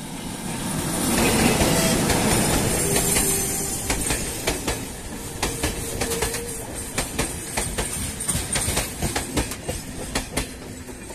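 A ChME3 diesel shunting locomotive passes close by, loudest about one to three seconds in. A string of open freight wagons follows, their wheels clacking over the rail joints in quick clusters of sharp clicks.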